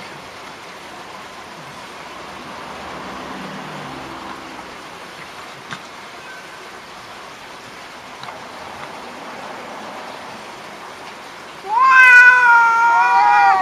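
Two domestic cats in a standoff. A faint low growl comes a few seconds in, and near the end one cat breaks into a loud, wavering yowl, the threat call that comes before a cat fight.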